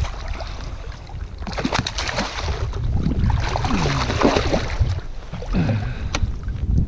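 Wind buffeting the microphone over water sloshing and splashing around a small fishing boat, busiest in the middle few seconds.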